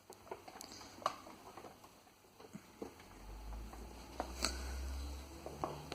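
Scattered light clicks and knocks. A low rumble comes in about three seconds in and fades near the end.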